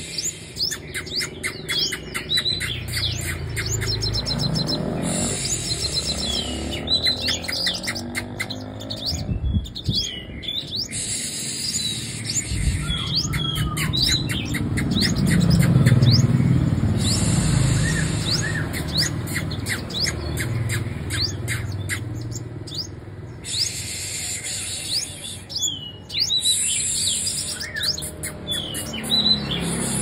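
Caged female sunbird singing: repeated thin, high chirps and quick sweeping notes, with fast ticking twitters and very high trills coming back every few seconds, over a low background rumble.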